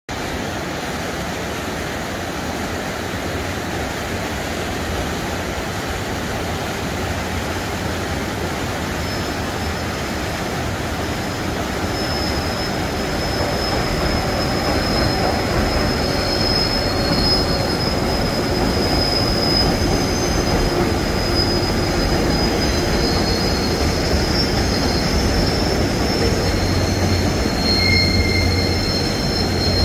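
Rushing of a flooded river, joined about a third of the way in by a KORAIL Mugunghwa passenger train, hauled by an 8200-class electric locomotive, crossing a steel rail bridge slowly. Its brakes squeal in thin, high, steady tones that grow louder and more numerous toward the end.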